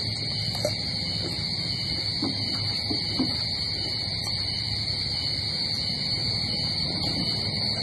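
Eating at a table: a few faint clicks of spoons on bowls and chewing over a steady background hum with a constant high-pitched whine.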